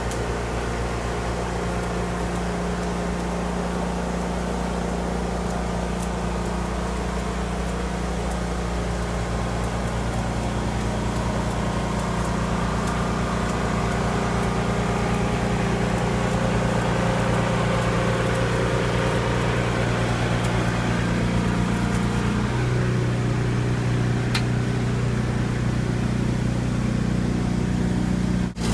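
An engine running steadily with an even low hum. Its note shifts slightly near the end.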